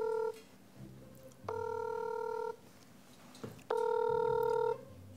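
Smartphone on speaker playing the ringing tone of an outgoing call while it waits to be answered. One steady beep ends just after the start, then two more follow. Each lasts about a second, with a little over a second of quiet between them.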